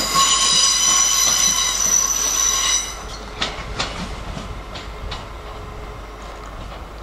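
Train wheels squealing on the rails in several high, steady tones. The squeal stops about three seconds in, leaving a few sharp clicks of wheels passing over rail joints.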